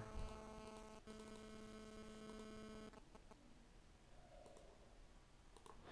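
Near silence with a faint, steady electrical hum in the recording for about the first three seconds, broken by a single click about a second in.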